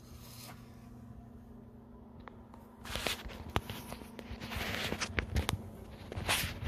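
A smartphone being handled and passed from one person to another, heard on its own microphone: quiet at first, then from about three seconds in fingers rubbing and knocking on the phone give clicks and bursts of rustling, over a faint steady hum.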